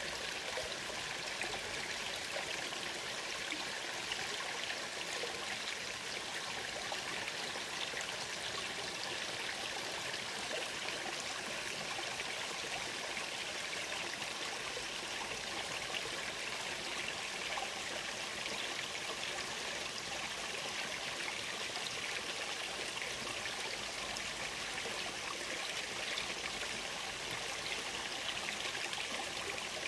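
Shallow stream flowing steadily over rocks, an even rush and trickle of water.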